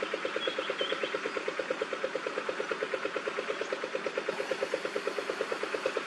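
A motor running steadily: an even pulsing hum at about ten beats a second. A faint high bird chirp comes in about half a second to a second in.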